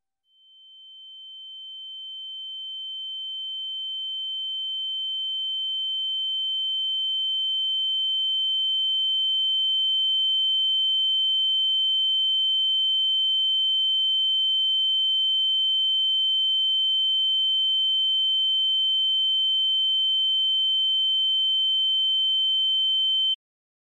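A single high-pitched electronic sine tone, a steady ringing that fades in over about ten seconds, then holds and cuts off abruptly shortly before the end. A much fainter lower tone sits beneath it.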